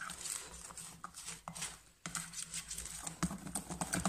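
Wire balloon whisk beating thin cake batter by hand in a bowl, its wires tapping and clicking rapidly against the bowl's sides, with a brief pause about halfway.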